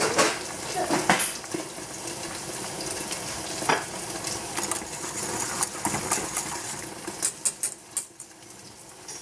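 Hot milk being stirred in a stainless steel pot, the utensil scraping and clinking against the metal now and then, with a quick run of clinks near the end over a steady hiss.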